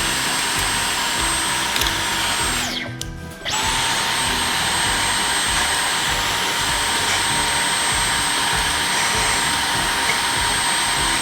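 Dyson V15 cordless stick vacuum running with a steady high whine, sucking dust out of Roomba brushes. A little under three seconds in it is switched off and its pitch drops as the motor spins down. Under a second later it starts again and keeps running.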